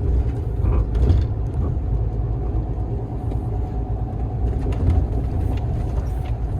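Steady low rumble of a truck's engine and road noise heard from inside the cab while driving.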